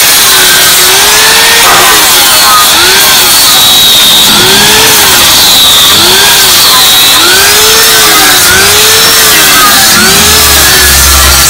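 Angle grinder fitted with a carving disc, cutting into a wood carving. The motor pitch rises and falls over and over, about once a second, as the disc is pressed into the wood and eased off.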